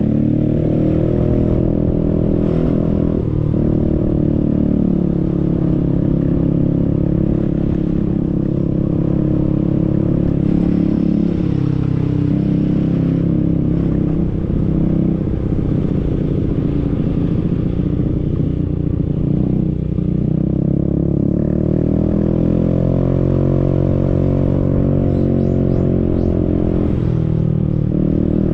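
Motorcycle engine running under way, its pitch rising and falling as the throttle is opened and eased off.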